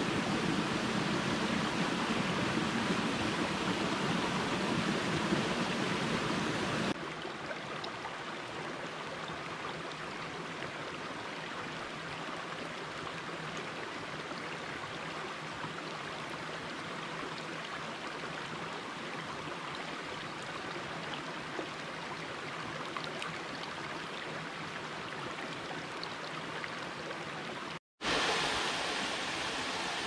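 Shallow rocky mountain creek running over stones, a steady rush of water. About seven seconds in it cuts abruptly to a quieter stretch of the stream, and near the end, after a split-second gap, to the louder splashing of a small waterfall.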